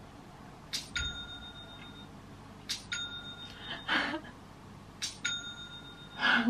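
Smartphone new-order notification dinging three times, about two seconds apart, each a short click followed by a bell-like ring lasting about a second; each ding signals an online order being placed.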